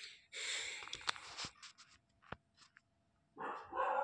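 Batter-coated baby corn fingers deep-frying in hot oil, sizzling and crackling for about a second and a half, then dying down to a few faint ticks. A short pitched sound starts near the end.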